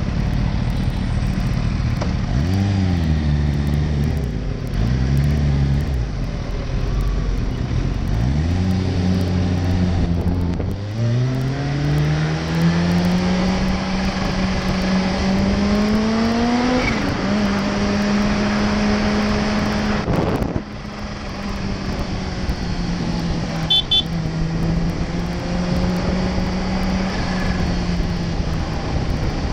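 Kawasaki Ninja H2's supercharged inline-four engine, heard from the rider's seat. It idles with a couple of short throttle blips, then pulls away with revs climbing and dropping at two upshifts. It then holds steady cruising revs, easing off briefly once, with wind rushing past.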